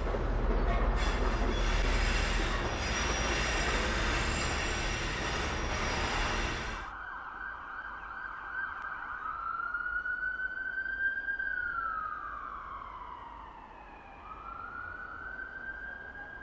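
A Direct Rail Services locomotive passing close by, loud engine and rail noise that cuts off suddenly about seven seconds in. After that, a siren wailing over a steady high tone, rising and falling twice.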